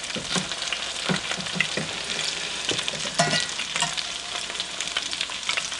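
Potato latkes sizzling and crackling in hot oil in a stainless steel frying pan, with a metal spatula knocking and scraping against the pan as they are turned over, several knocks in the first two seconds and another a little past the middle.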